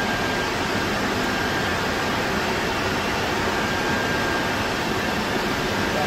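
Steady, even rush of cooling air from the equipment racks' fans and the room's air conditioning in a telecom equipment room, with a faint high steady tone running under it.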